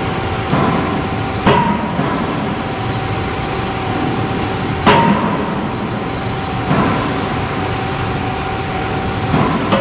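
Forging hammer striking metal: five irregularly spaced heavy blows, the loudest about halfway through, each followed by a short metallic ring, over a steady machine hum.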